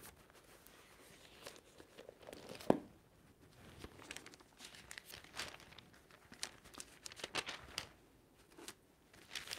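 Pages of a large Bible being leafed through by hand: faint, scattered rustles and flicks of paper, with one sharper flick a little under three seconds in.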